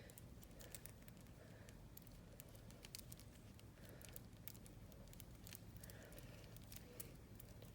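Faint, irregular light clicks of beads and chain being handled as a beaded necklace is laid down and its clasp connected.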